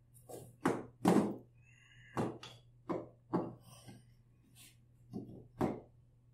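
Wooden toy train track pieces clacking and knocking as they are handled, fitted together and set down: about eight short wooden knocks in uneven clusters, the loudest about a second in.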